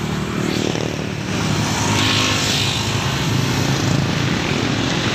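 Small motorcycle engine idling steadily, a low even hum.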